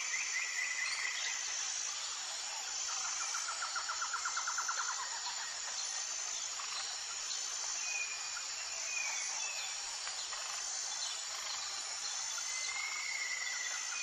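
Outdoor nature ambience: a steady high chorus of insects with evenly repeating chirps, and birds calling over it in rapid pulsed trills and a few short whistled notes.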